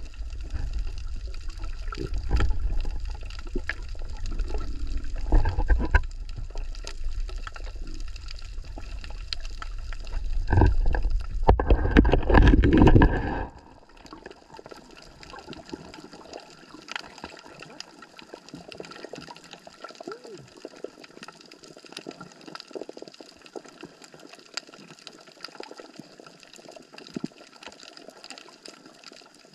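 Water splashing and sloshing with irregular knocks, loud and rumbling at first. About halfway through it drops suddenly to a quieter trickling and patter.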